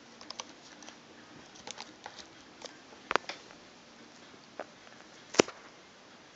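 Small plastic clicks and scrapes of a Samsung USB adapter being pushed into a tablet's port and handled, with two sharp clicks about three and five and a half seconds in, the second the loudest.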